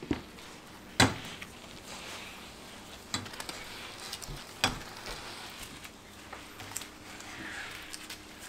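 Occasional sharp knocks and taps of hand candy-making work at a work table. The loudest comes about a second in and another after about four and a half seconds, with lighter taps between, over a low steady hum.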